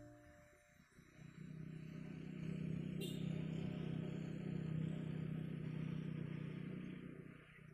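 A motor vehicle running past, a steady engine hum that swells about a second in and fades away near the end.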